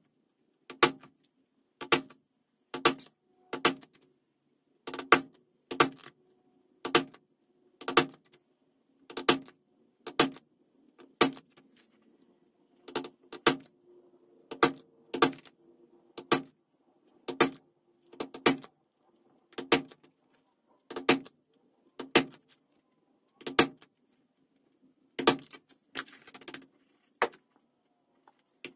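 Mallet striking a metal leather punch through vegetable-tanned leather on a work board, punching a row of stitching holes. Sharp knocks come about one a second, sometimes two in quick succession.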